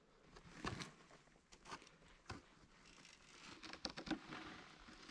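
Faint scrapes and light knocks of a rough-sawn board being shifted and fitted into place against a post on gravelly ground, with gloved hands rustling. The knocks come scattered and irregular, a few of them close together near the end.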